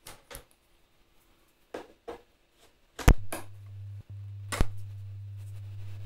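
Connector clicks as XLR and USB plugs are handled, then a loud pop about three seconds in as a steady 100 Hz test tone comes through an off-brand USB-C to XLR adapter cable. The tone cuts out for an instant around four seconds with another pop and then continues; phantom power has just damaged one side of the adapter.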